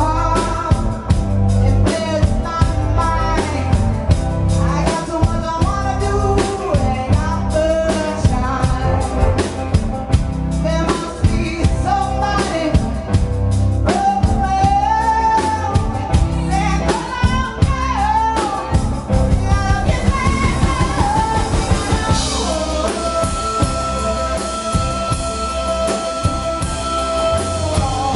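Live band playing with a lead vocalist singing into a microphone, over drum kit, electric bass, guitars and keyboard. In the last several seconds the drumming thins and long held notes ring out.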